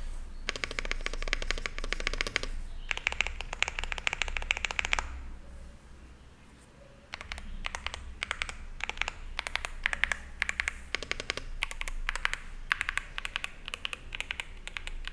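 Typing on a Zoom65 mechanical keyboard with WS Brown tactile switches, an aluminium plate and PBT keycaps: two fast bursts of rapid keystrokes, a pause of about two seconds, then typing in shorter runs.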